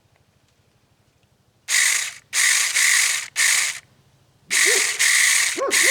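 Saker 20-volt battery mini chainsaw run in five short, loud bursts of the trigger, the chain whirring, to work freshly applied oil around the chain.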